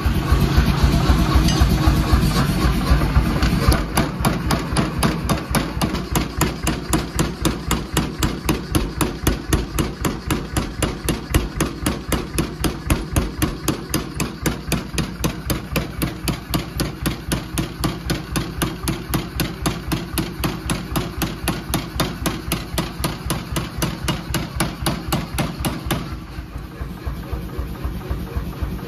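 Power hammer striking hot stainless steel held in a hand-held top-and-bottom tool, in a fast, even train of blows, several a second, over the steady hum of the hammer's motor. The blows are heaviest in the first few seconds and ease off briefly near the end.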